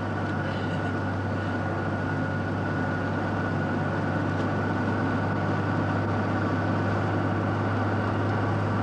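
A vehicle's engine running steadily, heard from inside the cabin, as a constant low hum with no change in speed.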